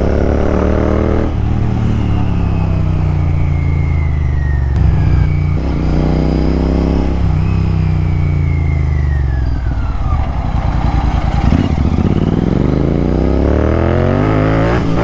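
Royal Enfield Continental GT 650's parallel-twin engine working through the gears in slow traffic. The revs climb and drop at each shift, about one and seven seconds in, then fall away as the bike slows around ten seconds in, with a brief rough crackle. The revs climb again over the last few seconds.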